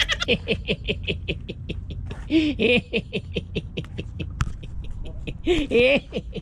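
A man laughing in a long run of short, breathy bursts, about five or six a second, with a few voiced whoops mixed in, over a steady low hum.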